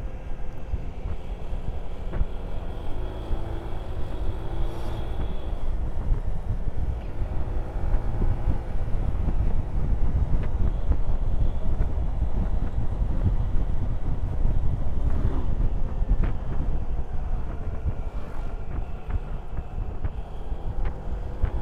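Motorcycle engine running on the move, its pitch rising and falling as the throttle is opened and eased through bends, under heavy wind rush on the microphone.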